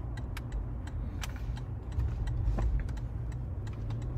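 Low engine and road drone heard inside a Toyota Prado's cabin as it drives around a corner, with scattered light clicks and ticks over it.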